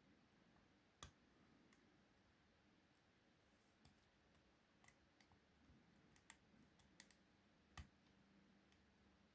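Faint, irregular metallic clicks of a short hook pick and tension wrench working the pins of a 5-pin euro cylinder, about ten separate ticks with uneven gaps.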